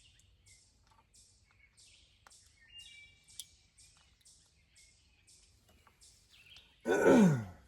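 Birds chirping in the background, with faint high rasping calls repeating about twice a second. Near the end comes one short, loud, voice-like sound that falls sharply in pitch.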